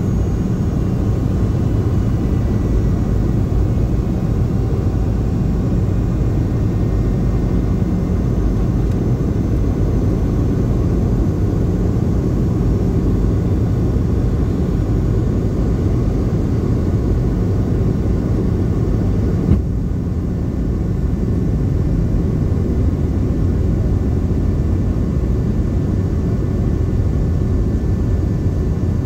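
Cabin noise of a Boeing 717 in flight, dominated by a steady low rumble from its rear-mounted Rolls-Royce BR715 turbofans and the airflow, with a faint high engine whine. A brief click comes about twenty seconds in, after which the higher sounds dip for a moment.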